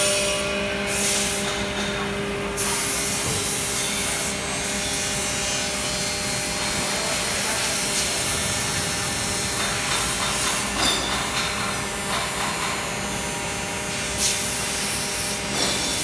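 Steady factory workshop noise: a broad hiss over a low, even machine hum, brightening about three seconds in and again near the end.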